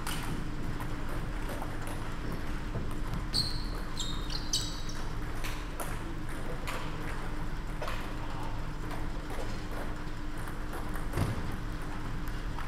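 Table tennis rally: the ball clicking off the bats and table at irregular intervals, with a few short shoe squeaks on the sports-hall floor about four seconds in.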